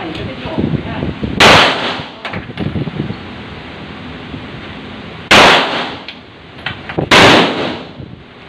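Handgun shots on an indoor firing range: three loud single shots, about a second in, at about five seconds and a second and a half later. Each has an echoing tail.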